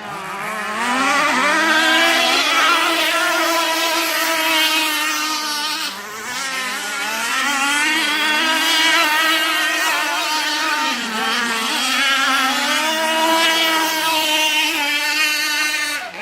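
Petrol-engined radio-controlled catamaran boat's small two-stroke engine running at high revs, its pitch wavering up and down as the boat speeds and turns; the sound dips briefly about six seconds in.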